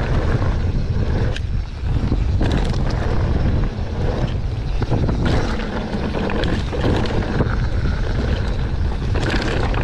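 Mountain bike being ridden fast down a rough trail: heavy wind buffeting on an action camera's microphone, with frequent knocks and clattering from the bike over the ground.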